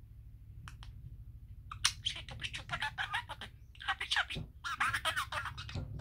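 Male budgerigar chattering: a fast, scratchy stream of clicks, chirps and speech-like warbling, in two runs starting about two seconds in and again about four seconds in. A steady low hum lies underneath.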